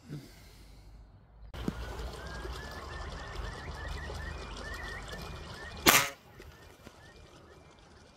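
Birds calling in a string of short repeated chirps over a low rumble, broken about six seconds in by one brief, loud burst of noise.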